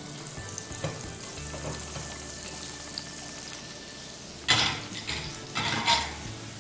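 Chopped onion frying in sunflower oil and butter in a pan, a steady sizzle. Near the end comes a run of louder scrapes as the onion is stirred in the pan.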